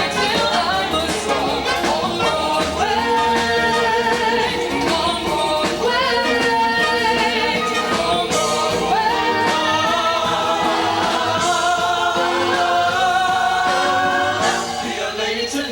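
Music with singing: a song with vocals over instrumental backing.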